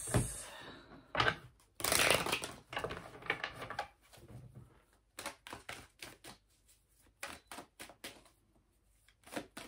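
A deck of tarot cards being shuffled by hand: a dense rustle of cards about two seconds in, then scattered light taps and flicks as the cards are handled.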